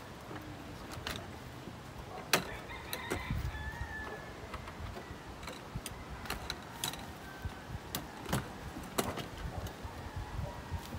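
Scattered clicks and knocks of bench seats and fittings being handled and fitted into a Porta-Bote folding boat's plastic hull, with one sharp knock about two seconds in as the loudest.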